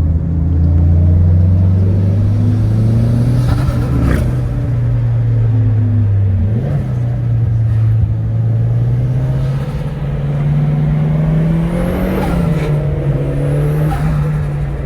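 Turbocharged KA24DE four-cylinder of a Nissan S13 with an HKS Hi-Power exhaust, pulling under load with its pitch rising, dipping about six and a half seconds in, then climbing again. Turbo whooshes come about four seconds in and around twelve seconds, with short rising whistles near the end.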